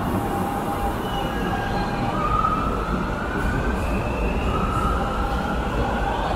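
Shanghai Metro Line 4 train starting to pull away from the platform: its traction motors whine in repeated rising steps of pitch over a low rumble as it accelerates.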